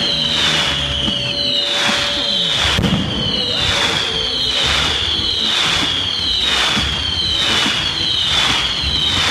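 A fireworks barrage firing whistling shots in steady succession, about two a second. Each shot is a short burst with a falling whistle, and there is one sharper bang about three seconds in.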